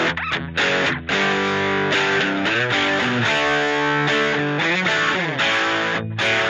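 Background music led by guitar, with a few short breaks in the sound.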